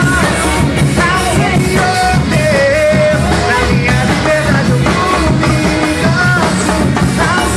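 Church worship band playing an upbeat, rock-style song at a steady level: drums and bass keep the rhythm under a wavering lead melody.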